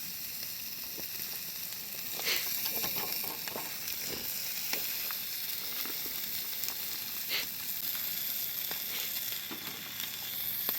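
Campfire burning: a steady sizzling hiss with scattered sharp crackling pops.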